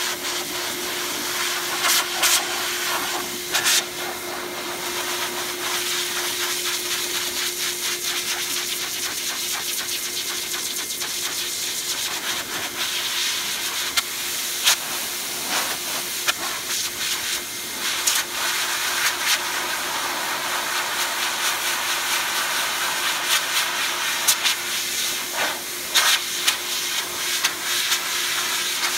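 Metro Vac Master Blaster 8 HP high-velocity dog blower running, a continuous hiss of rushing air with a steady motor hum under it through the first part, as it blows loose undercoat out of a shedding Siberian husky's coat. The air noise swells and dips in places, with a few sharp clicks scattered through.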